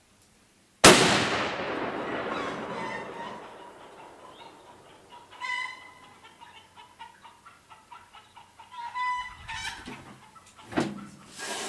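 A single .30-06 rifle shot about a second in, its report dying away over a few seconds. Then fowl clucking and calling at intervals.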